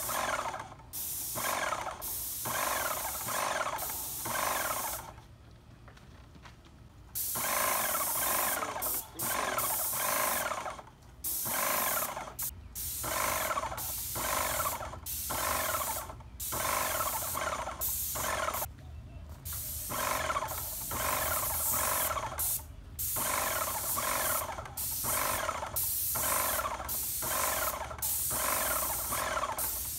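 Airless paint sprayer spraying wood stain in a string of short trigger bursts, each about a second long: a hiss with a buzzing pump note under it. There is a pause of about two seconds about five seconds in.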